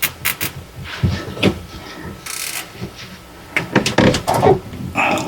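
Nylon zip tie being pulled tight around a hose, with a short rasping zip about two and a half seconds in, amid clicks and knocks of hands working among the hoses.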